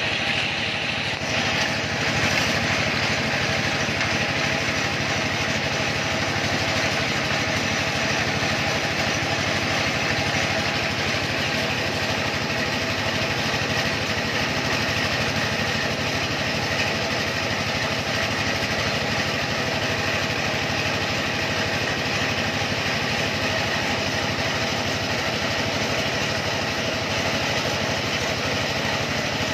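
Small engine running steadily at constant speed, powering a water-well drilling machine.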